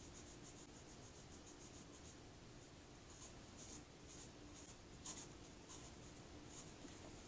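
Faint, quick scratching strokes as coating is scraped off a glitter-coated tumbler. The strokes come in irregular runs, several a second.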